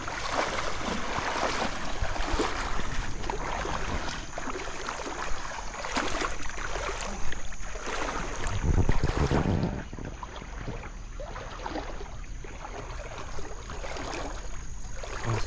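Water splashing and a cast net full of fish being hauled and handled, with irregular splashes and knocks that die down about ten seconds in.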